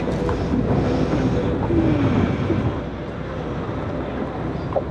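Boat engine running at idle, a steady low sound, as the boat pulls slowly away from the dock.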